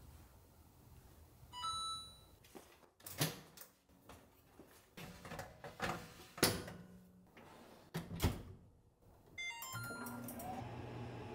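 Electronic control-panel beeps from a light-wave (microwave/convection) oven, a few sharp knocks and clicks as its door and contents are handled, then a second run of beeps and a steady running hum that starts near the end as the oven switches on.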